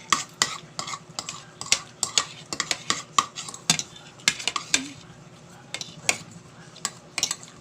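Cutlery clicking and scraping against a dish of noodles while eating, many quick irregular taps.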